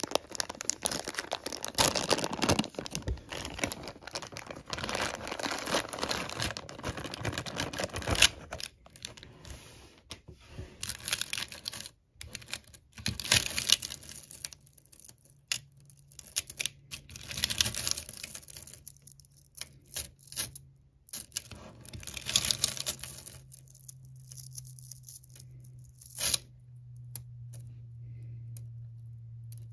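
A thin plastic bag crinkling and tearing open, then small smooth ferrite magnetic pebbles clicking and clattering against each other and a metal tin as they are poured and handled, with sharp clicks as they snap together. A low steady hum comes in near the end.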